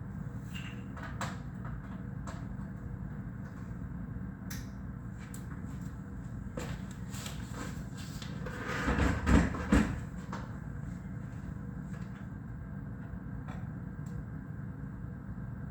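Experimental noise from a rig of mixer feedback, reel-to-reel tape, reverb and bass: a steady low drone scattered with clicks and crackles. About nine seconds in it swells into a louder cluster of heavy low thumps for about a second, then settles back.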